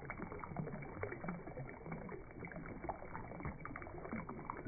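Shallow stream running over rocks: a steady wash of water with many small splashes.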